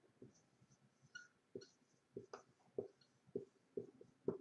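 Orange marker pen writing a word on a white board: faint, a string of about ten short strokes and light squeaks of the tip.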